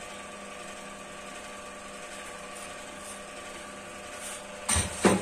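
Steady hum of a running motor, holding several fixed tones. Near the end, two sharp knocks about half a second apart.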